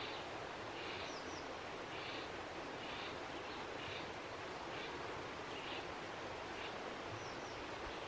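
Short, high bird calls repeated about once a second, with two brief higher chirps, over a steady outdoor background hiss.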